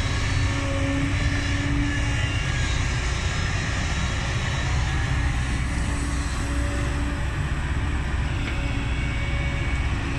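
Kobelco SK200 hydraulic excavator's diesel engine running steadily under working load, with a humming tone that comes and goes as the boom and bucket move while it dumps soil and swings back to dig.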